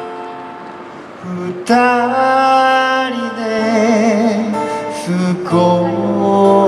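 Man singing a slow song to his own acoustic guitar, through a microphone. A guitar chord fades for the first second and a half, then the voice comes in with held notes and vibrato over the strumming.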